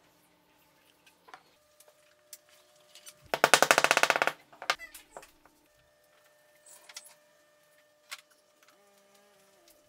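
A rapid rattle of metal-on-metal strikes lasting about a second: a steel drift being driven down onto a ball bearing to seat it in a hole in a plywood block. A few single knocks follow, with light clicks and taps scattered around it.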